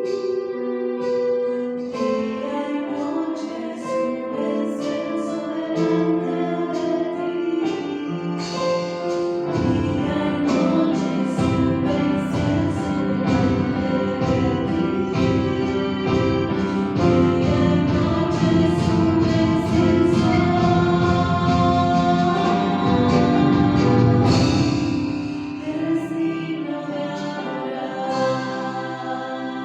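Choral music: a choir singing sustained chords. The texture fills out with a heavy low register from about ten seconds in, then thins out again near the end.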